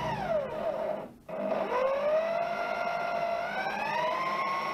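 Handheld electric drill's motor whining. Its pitch falls as it slows, it stops briefly about a second in, then starts again at a lower speed and speeds back up near the end.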